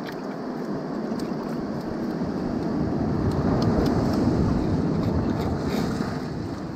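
Rushing noise of surf and wind at the shore. It swells to its loudest about halfway through, then eases off.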